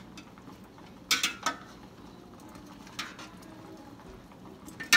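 A metal spatula and fork knocking and scraping against an enamel roasting pan as a whole roast chicken is turned over in its juices. There is a burst of clatter about a second in, a lighter knock around three seconds, and a sharp knock near the end.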